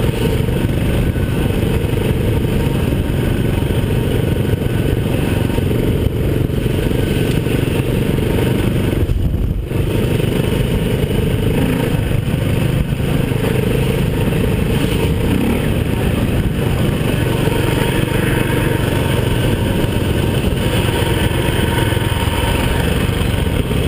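Enduro motorcycle engine running hard under way, heard from the bike itself, mixed with wind rush over the microphone. It eases off briefly about nine and a half seconds in, then picks up again.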